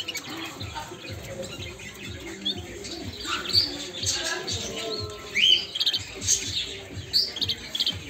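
A group of red mosaic canaries chirping and calling: many short, high chirps and quick upward-sweeping notes overlapping one another, the loudest a rising call a little past the middle.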